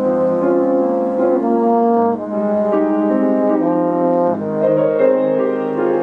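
A French horn playing a melody of held notes, each lasting about half a second to a second.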